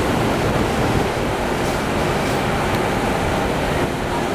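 Wind buffeting the microphone: a steady, loud rushing with an uneven low rumble.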